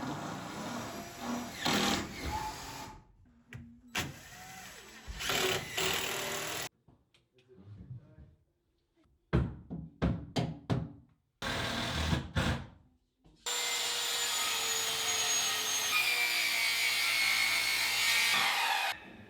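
Wood-framing work with tools, in short edited segments: a run of sharp knocks like hammer or nail strikes about halfway through, then a power tool running steadily for about five seconds near the end.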